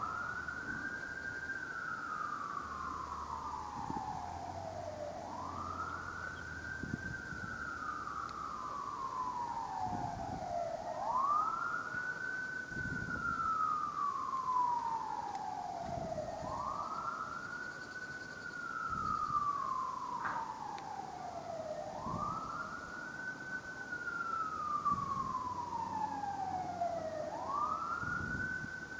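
Siren wailing, its pitch sweeping up quickly and then sliding slowly down, repeating about every five seconds, with a few faint low knocks underneath.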